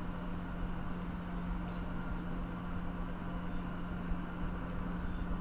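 Steady low mechanical hum with one constant low tone under it and an even hiss, unchanging throughout.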